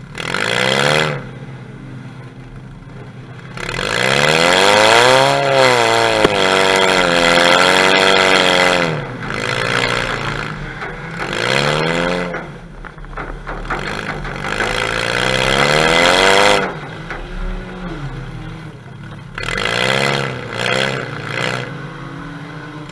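Demolition derby car's engine, heard close through an open vertical exhaust stack on the hood, revving up and down in repeated surges as the car is driven hard around the arena, the longest surge about four seconds in.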